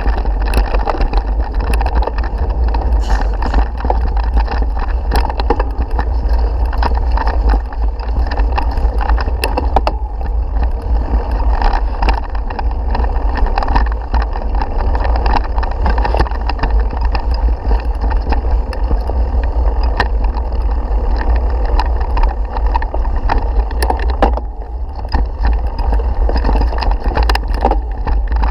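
Mountain bike ridden over a rough grass and dirt track, heard through a camera mounted on its handlebars: a steady heavy rumble of wind and vibration, broken by frequent knocks and rattles as the bike jolts over bumps.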